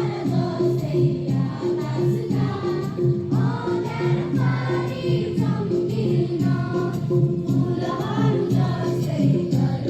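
A group of voices singing a song together in chorus over a steady musical backing.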